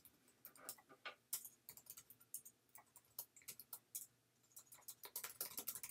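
Typing on a computer keyboard: faint, quick, irregular key clicks, with a short pause about four seconds in.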